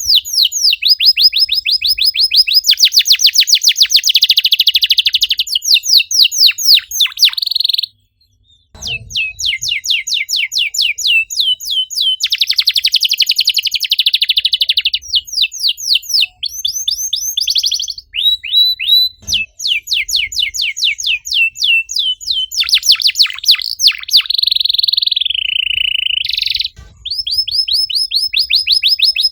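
Domestic canary singing a fast, dense song: rapid runs of high sweeping chirps alternating with long rolling trills, breaking off briefly about eight seconds in.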